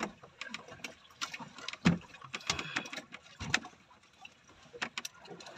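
Irregular clicks and knocks aboard a fishing boat, the loudest a thump about two seconds in.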